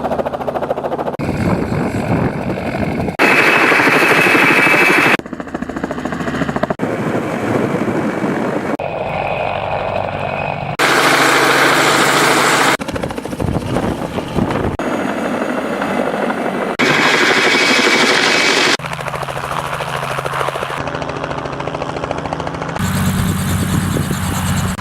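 Helicopter noise in short clips cut together every second or two, some segments much louder than others.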